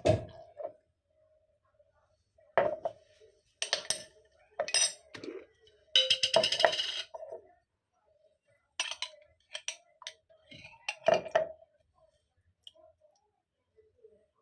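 Kitchen utensils and glassware clinking, struck again and again in separate sharp clinks that ring briefly. About six seconds in comes a denser rattling stretch lasting about a second, and a faint steady hum sits underneath.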